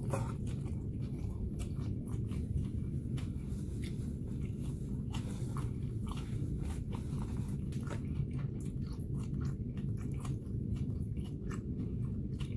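A person chewing a grilled chicken sandwich close to the microphone: a string of short, wet mouth clicks and bites, over a steady low hum.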